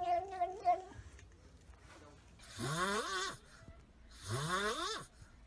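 A tabby cat's meow trails off in the first second. Then a kitten eating dry kibble from a metal bowl gives two raspy calls that rise in pitch, each under a second long and about a second and a half apart.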